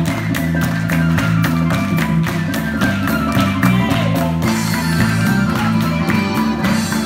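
Lively dance music with a fast, steady beat of about four strokes a second.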